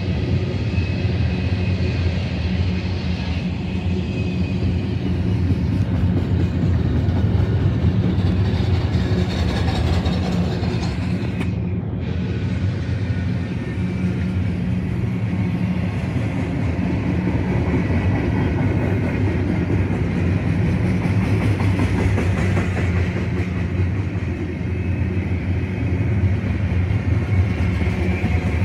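BNSF double-stack intermodal freight train rolling past at close range: steady rumble of steel wheels on rail under the loaded container well cars.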